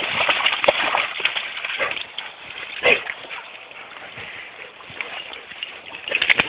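Water sloshing and splashing as Weimaraners wade and swim in a pond, busiest in the first two seconds, with one sharp splash about three seconds in.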